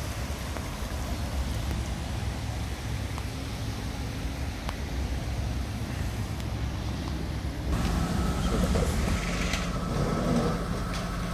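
Steady rushing noise of floodwater flowing past a fence. About eight seconds in, a fire engine's motor comes in over it, running steadily with an even hum.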